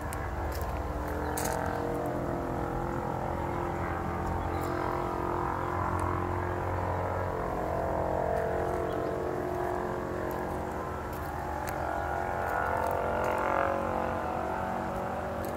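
An engine running steadily, its droning pitch shifting slowly up and down, with a few faint ticks over it.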